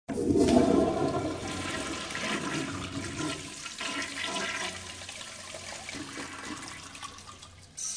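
A toilet flushing: a sudden loud rush of water in the first second, then swirling, gurgling water draining away and slowly fading. Just before the end, a new sharp hiss of water starts.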